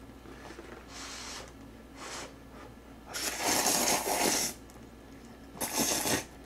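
A person slurping black-bean-sauce (jjajang) instant noodles, with a couple of short slurps, then a long loud slurp about three seconds in and a shorter loud one near the end.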